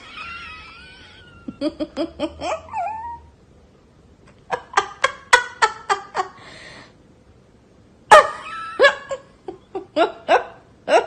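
People laughing in repeated bursts of rhythmic 'ha-ha' pulses, the loudest fit near the end, with a brief high wavering call at the start.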